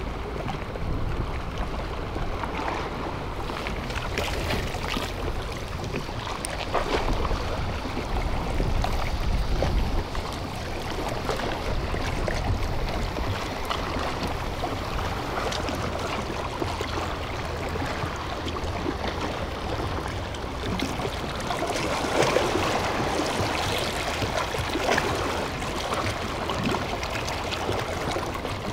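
Wind buffeting the microphone with a low rumble, heaviest in the first third, over sea water washing against a concrete breakwater. A few faint short clicks are mixed in.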